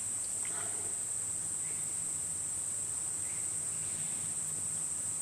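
A steady high-pitched whine with a few faint small clicks and scrapes as a steel piston ring is worked by hand into the groove of a model steam-engine piston.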